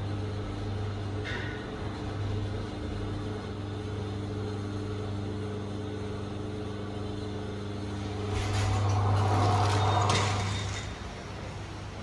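LG Di1 passenger lift running with a steady electrical hum as the car travels down. About eight seconds in, the car stops and the sliding doors open with a louder rumbling rush lasting about two seconds.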